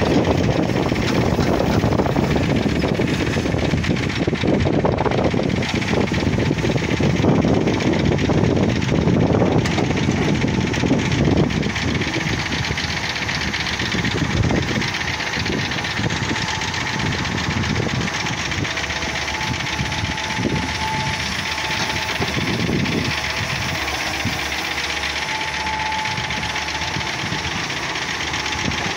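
Diesel engine of a Hitachi hydraulic excavator running under load as the boom and bucket work, heavier and rougher for the first dozen seconds and then steadier. Faint high tones come and go in the second half.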